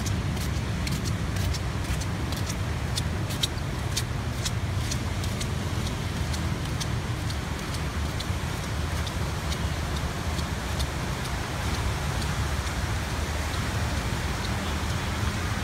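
Steady low rumble of wind buffeting the phone's microphone by the sea, with a run of faint sharp clicks, thickest in the first half.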